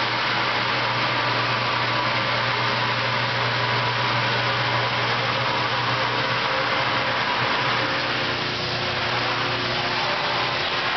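Semi-automatic 5-gallon jug washing machine running steadily: a constant motor hum under an even rushing noise.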